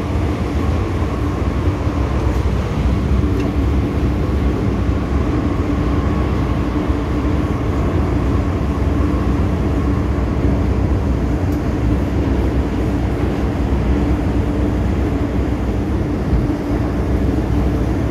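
MTR M-Train car running steadily, heard from inside the car: a continuous rumble of wheels on rails with a steady hum under it.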